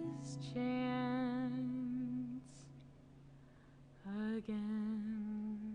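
A woman's voice humming two long held notes with a slight wavering pitch, with a breath before each, as a song ends. The first note sits over a steady low instrumental note that fades out partway through.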